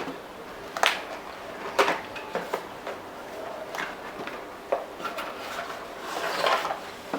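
A toy's packaging being opened and handled by hand: a few sharp clicks and knocks, then a longer rustling scrape about six seconds in.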